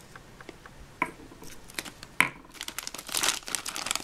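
Clear plastic bag crinkling as small plastic toy tools are handled and pulled out of it, with a few sharp clicks of plastic parts knocking together; the crinkling becomes dense and continuous over the last second and a half.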